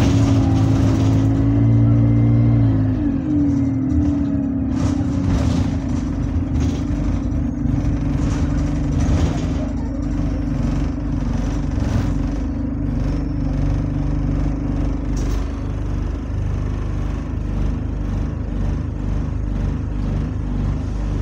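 Single-deck bus engine running under way, heard from inside the rear of the cabin: a steady drone that drops in pitch about three seconds in. Scattered knocks and rattles from the bus body come through on top.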